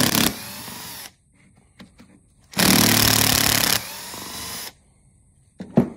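Cordless impact driver backing screws out of a pole saw gear head casing. Two loud bursts of hammering: one ends just after the start, the other runs for over a second from about two and a half seconds in. Each eases into a quieter spin for about a second as the screw runs free. A single sharp click comes near the end.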